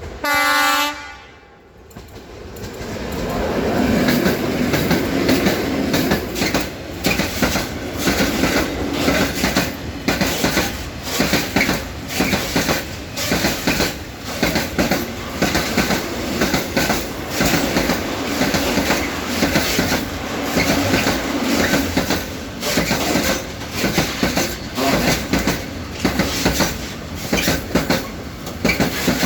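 Freight train locomotive's horn giving one blast of about a second, the Rp1 'attention' warning signal. Then the train's wagons pass close by, wheels clattering over the rail joints in a steady rhythm, loud from about four seconds in.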